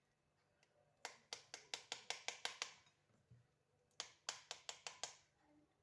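Quick, sharp taps in two runs, roughly six a second: about ten starting a second in, then about seven more near the end. A halved pomegranate is being struck on its rind to knock the seeds out.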